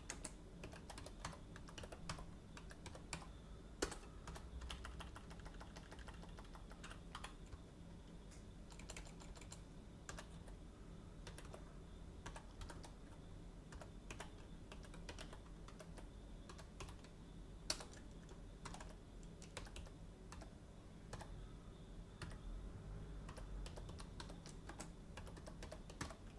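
Computer keyboard typing: faint, irregular keystrokes as a command and config lines are typed, with a few louder key presses.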